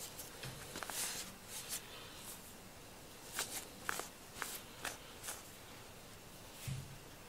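Soft rustling and scattered light clicks as hands handle a rubber-studded grooming glove, peeling off the shed cat fur it has collected, with a low thump near the end.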